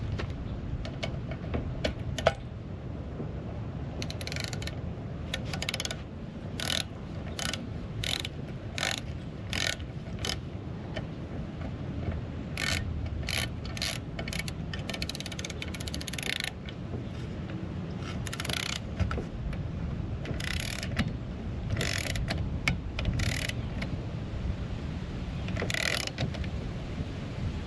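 Ratcheting torque wrench clicking in short runs as bolts are tightened toward about 30 inch-pounds, with pauses between runs. A steady low hum sits underneath.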